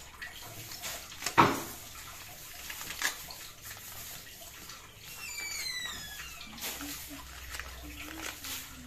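Kitchen handling sounds while a custard powder packet is handled and opened: a sharp knock a little over a second in and a lighter click a couple of seconds later, over faint background noise. About five seconds in comes a brief high squeak that falls in pitch.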